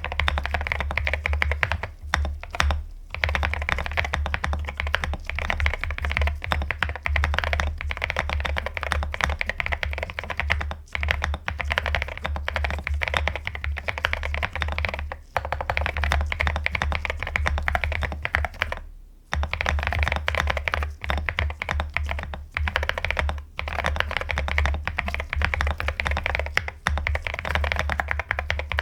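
Fast, continuous typing on a mechanical keyboard, a dense run of key clicks with a few brief pauses, the longest about two-thirds of the way in.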